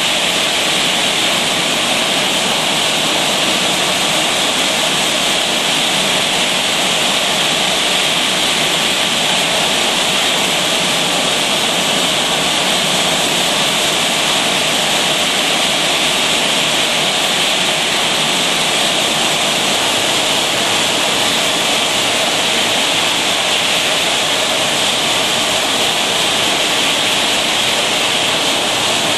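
Steady, even hiss-like din of an automatic bottling machine running, with no separate clinks or rhythm.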